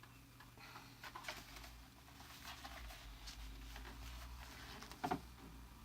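Faint rustling and small clicks of items and packaging being handled while a subscription box is unpacked, with one sharper knock about five seconds in.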